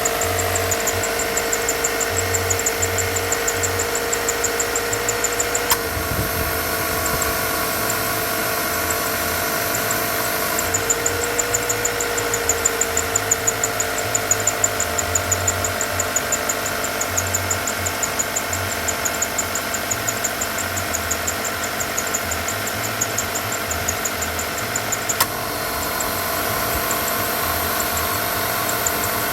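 Subaru Levorg running steadily, with several steady whining tones, a fast regular high ticking and a low hum that comes and goes. The sound changes briefly about six seconds in and again near the end. This is the noise the owner suspects is abnormal.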